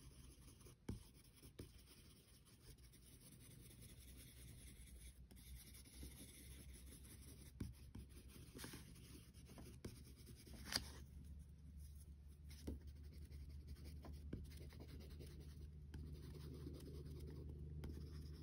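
Faint scratching of a wax crayon rubbed back and forth across paper while colouring, with a few light ticks.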